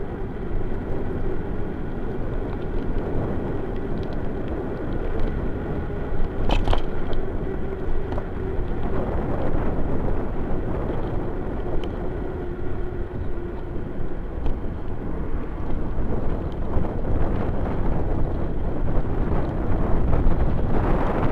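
Steady rumbling noise of a bicycle rolling over paving stones, heard from a camera mounted on the bike. A sharp click comes about six and a half seconds in, and a faint steady hum fades out about thirteen seconds in.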